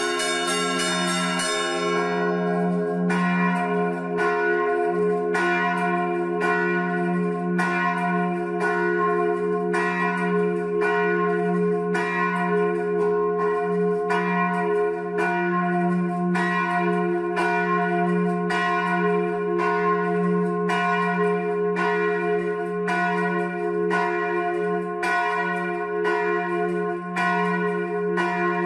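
Four-bell tower of church bells ringing the festive noon peal: the big F bell hums steadily while the fixed C and E bells are struck by hammers in an even rhythm, about three strokes every two seconds. The bells are poorly kept, and the hammers knock and rattle.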